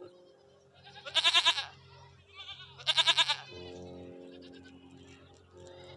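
Goat bleating twice, two loud wavering calls about two seconds apart.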